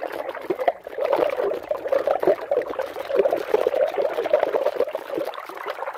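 Floodwater running and gurgling steadily, a dense bubbling trickle with many small splashes.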